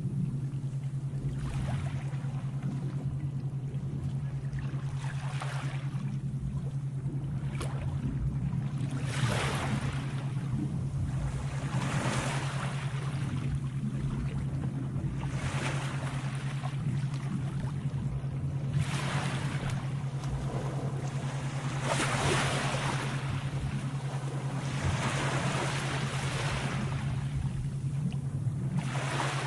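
Sea waves washing in one after another, a fresh surge every three to four seconds, over a steady low hum.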